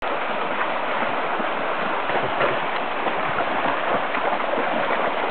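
Shallow stream running over rocks and stones, a steady rushing water noise, with dogs wading and splashing through the water.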